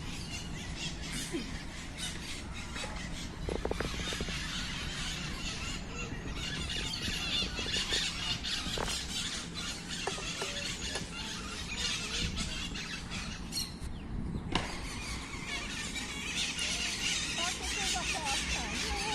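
A flock of maritacas (small parrots) screeching and chattering, with many shrill calls overlapping continuously.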